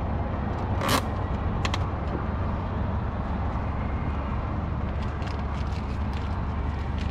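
A sharp snap about a second in, then a couple of lighter clicks and scattered faint taps: the plastic clips of a bumper lip being pressed into place on a car bumper. Under it runs a steady low rumble.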